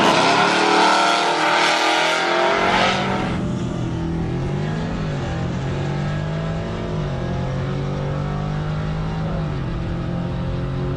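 Car engine at full throttle on a drag-strip pass. About three seconds in it drops off sharply to a lower, steadier engine note as the car slows, the pitch dipping and rising a couple of times.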